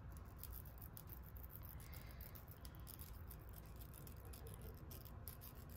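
Eyebrow razor cutting through the lace of a lace-front wig: a faint, irregular run of short scratchy strokes.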